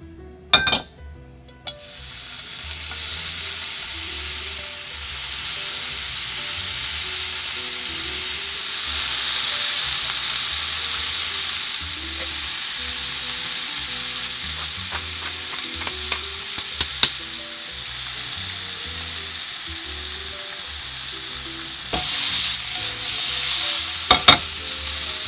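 Sliced pork belly sizzling as it fries in a nonstick frying pan. A few sharp clicks come in the first two seconds, then the sizzle starts and builds to a steady hiss. Near the end, wooden chopsticks click against the pan a few times while turning the slices.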